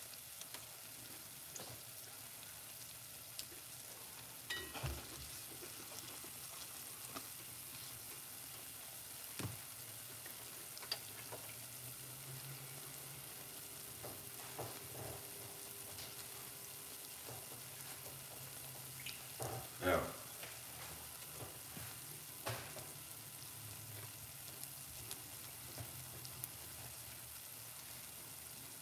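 Jamaican festival dumplings deep-frying in a pot of hot oil: a steady sizzling hiss with a few sharp cracks scattered through it, the strongest about twenty seconds in.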